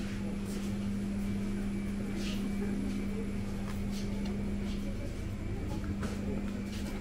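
Large-store ambience: a steady low hum, with a shopping cart rolling over a concrete floor and a few faint ticks and distant voices.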